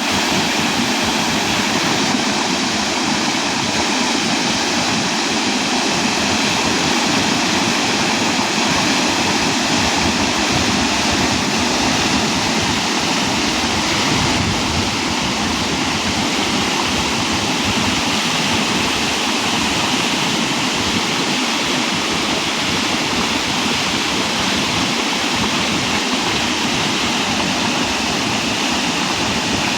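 A waterfall's falling water rushing steadily and loudly, without a break.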